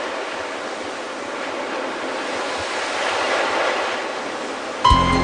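Ocean surf: a steady wash of breaking waves that swells a little about three seconds in. Music cuts in abruptly near the end.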